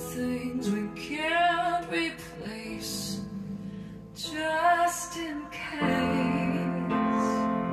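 A song with a female singer holding wavering notes over a sustained accompaniment, which grows fuller about six seconds in, played back through Jensen CS315 loudspeakers.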